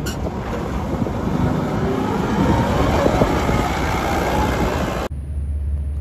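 Forklift engine running outdoors, with wind rumbling on the microphone. It cuts off abruptly about five seconds in, leaving a low steady hum.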